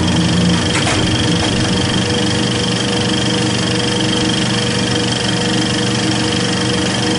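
A steady, machine-like hum holding several constant tones over a bed of noise, unchanging throughout.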